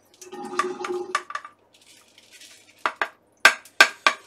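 Rinsed rice and water tipped into a strainer with a short rush, then five sharp clatters as the strainer and bowl knock against the sink, the loudest two near the end.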